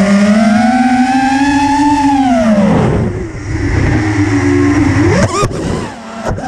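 FPV freestyle quadcopter's brushless motors and propellers whining, the pitch rising and falling with throttle: a long swell that peaks about two seconds in and drops away, then a lower, steadier whine. A sharp click comes about five seconds in.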